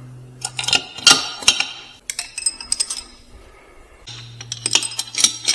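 Steel pushrods and rocker-arm parts from a Polaris Ranger 700 pushrod engine clinking and clicking against each other as they are pulled out and handled, in two short clusters of light metallic taps.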